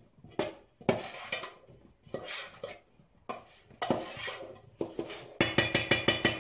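A spoon scraping and clinking irregularly against a bowl as oiled, seasoned potato chunks are stirred, ending in a quick run of rapid clinks near the end.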